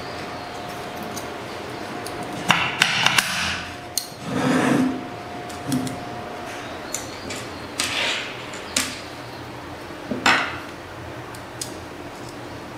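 Hand tools and hardware clicking, knocking and scraping while a power supply unit is being assembled. There is a quick cluster of sharp knocks about two and a half seconds in, a few short scrapes, and more knocks scattered through the rest. A faint steady tone stops about halfway through.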